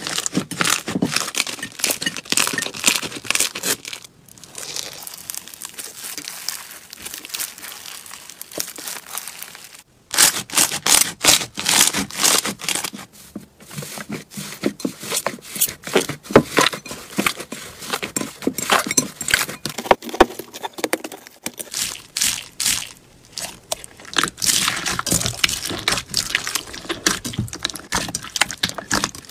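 Slime being squeezed and pressed by hand, giving dense crackling and popping. The sound drops to a softer, quieter squish about four seconds in, and the loud crackling returns about ten seconds in.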